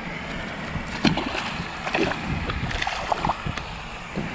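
A few small splashes of shallow pond water as a largemouth bass is released by hand and swims off, over steady wind buffeting the microphone.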